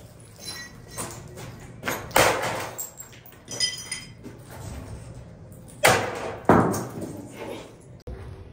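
Sledgehammer blows smashing a small plastic-and-metal printer on a wooden stump: a series of hard crashes about one to two seconds apart, the loudest near two seconds in and again near six and a half seconds, with some ringing and clattering pieces after the hits.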